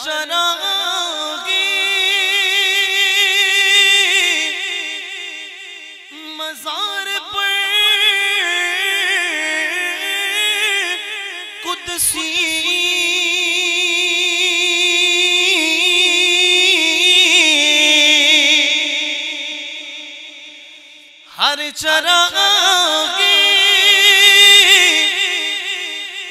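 A man reciting a naat, singing unaccompanied into a microphone in long held, ornamented phrases with a wavering pitch, breaking briefly about 6, 12 and 21 seconds in.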